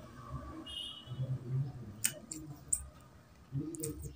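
Close-miked chewing and wet mouth clicks of a person eating rice and curry by hand, with a few sharp clicks about two to three seconds in.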